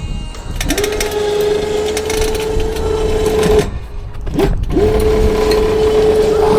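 Electric winch motor running with a steady whine, starting and stopping in short runs: it cuts out about three and a half seconds in, gives a brief blip, then starts again, each start sliding up to speed. The winch is hauling the vertical antenna back upright.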